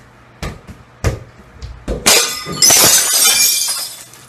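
A football thuds off the foot a few times. About two seconds in comes the loud crash of glass shattering, with pieces clattering and tinkling down for nearly two seconds.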